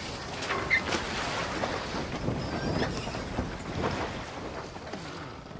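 Sea and wind ambience: a steady rush of water and wind with a few light knocks and a faint creak, slowly getting quieter toward the end.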